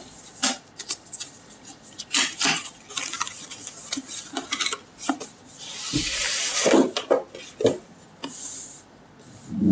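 Cardboard packaging being handled and opened: scattered taps and clicks of the box and its flaps, with a longer rubbing scrape about six seconds in as the inner box slides out of its sleeve.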